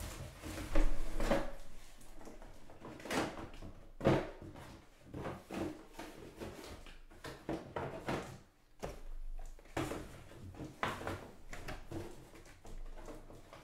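Trading cards and packs handled on a table: irregular rustles, slides and knocks, the loudest knock about a second in.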